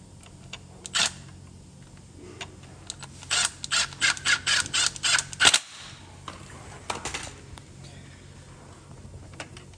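A run of sharp plastic clicks, about eight in two seconds in the middle, with single clicks before and after, from the plastic parts of a Steelcase Gesture chair's adjustment mechanism being handled and snapped into place.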